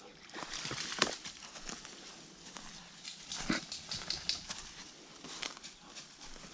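A dog moving about in mud: irregular soft steps with scattered clicks, a sharper knock about a second in and another about three and a half seconds in.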